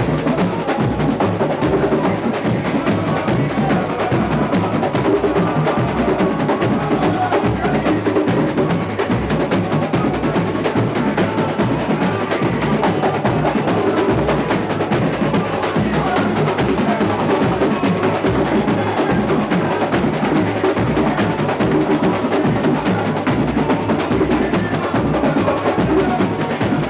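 Samba school bateria (percussion section) playing a continuous samba rhythm, drums dense and loud.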